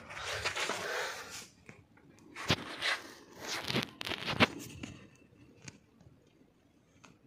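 Scuffing footsteps and rustling handling noise from a phone being moved around, with a few sharp clicks, the loudest about two and a half and four and a half seconds in; it grows quieter near the end.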